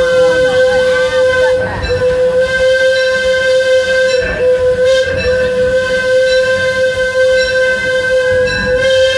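Steam whistle of the Disneyland Railroad's C.K. Holliday locomotive, blown in one long, steady blast heard close from the tender, wavering briefly a couple of times.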